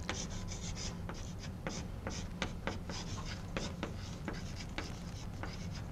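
Chalk writing on a blackboard: a string of irregular sharp taps and short scratches as symbols are chalked onto the board.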